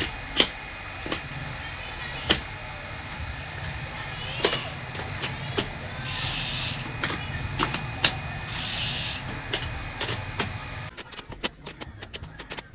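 SPD cleats on cycling shoes clicking into and out of Shimano PD-ED500 clipless pedals: sharp single clicks at irregular intervals over a steady hum, with two short hissing noises in the middle. Near the end the sound turns into a rapid run of ticks, played sped up.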